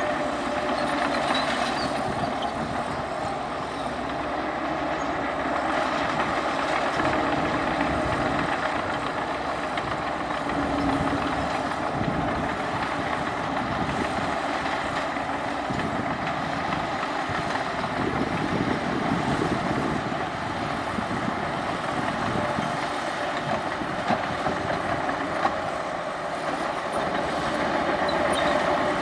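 Heavy diesel earthmoving machinery running steadily at work.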